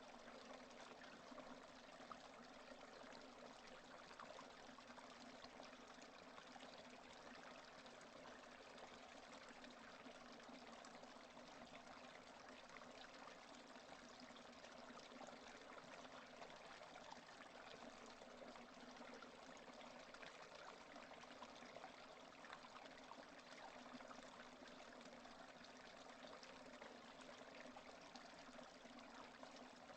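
Steady rain, a faint even hiss of countless small drops falling, with no thunder.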